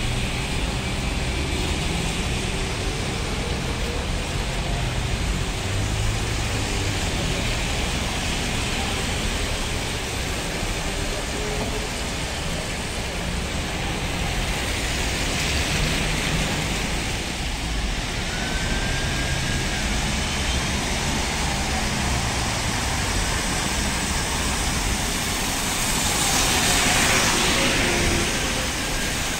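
Street traffic on a wet road: a steady hiss of tyres on wet asphalt and the running of passing cars and trolleybuses, with a few faint gliding whines. It swells as a vehicle passes close near the end.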